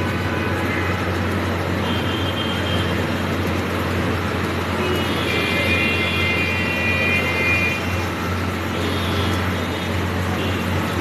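Street traffic noise with a steady low engine hum, and a high tone heard twice over it.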